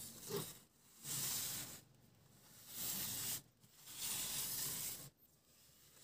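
A cardboard model base and hands rubbing and scraping across a tabletop: four short hissing strokes about a second apart.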